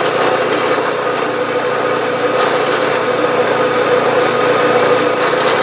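Bridgeport milling machine running steadily, a hum with a strong steady tone, as a 3/16-inch drill bores a hole into an aluminium disc.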